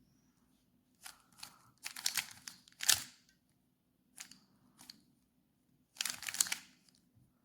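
A plastic 3x3 Rubik's cube being turned by hand: quick runs of clacking layer turns in several short bursts, with the sharpest click about three seconds in.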